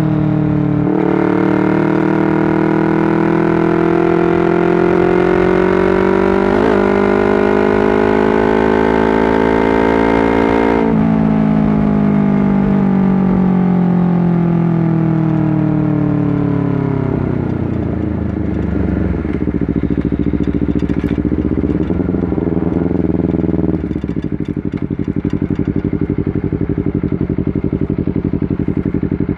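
Honda CBR250RR motorcycle engine pulling up through the revs in one long, slow climb. About eleven seconds in the throttle shuts and the revs fall away as the bike slows, wavering low before settling into a steady idle that cuts off at the very end.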